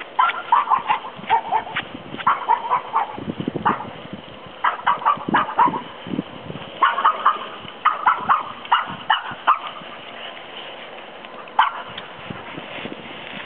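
Dogs barking and yipping in quick bursts of short calls, with several bursts over the first ten seconds, then quieter.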